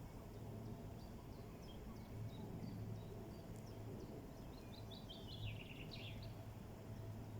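Small songbirds chirping sparsely over a steady low background rumble. About four and a half seconds in, one bird sings a quick run of notes stepping down in pitch.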